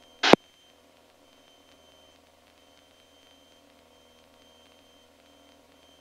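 A single short, sharp burst from the aircraft radio about a quarter second in, like a squelch tail or a briefly keyed transmission. After it comes a faint, steady hiss with a low hum from the radio and intercom audio feed.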